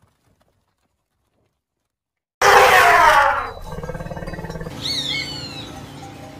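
An elephant trumps loudly, starting suddenly after a silence and falling in pitch, then drops into a low, pulsing rumble. Over it, a hawk gives a few descending screams and another near the end.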